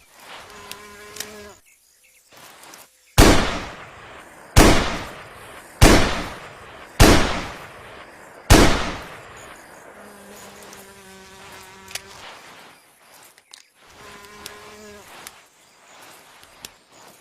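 Five shots from a Smith & Wesson Model 29 .44 Magnum revolver, fired one at a time about a second or a little more apart, each followed by a long fading echo. A buzzing drone comes and goes before and after the shots.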